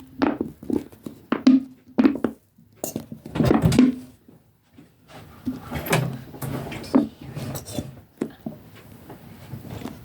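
Irregular taps, knocks and scrapes of slime containers and glue bottles being handled while glue is poured and mixed.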